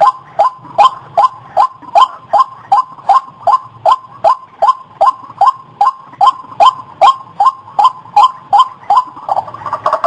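White-breasted waterhen calling its monotonous 'ruak-ruak' croak: short notes, each dropping in pitch, repeated evenly at nearly three a second. Near the end the rhythm breaks into a denser, rougher calling.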